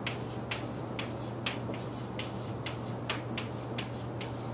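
Chalk on a blackboard: writing a long string of zeros and commas, each stroke a short sharp click, about two or three a second, over a steady low hum.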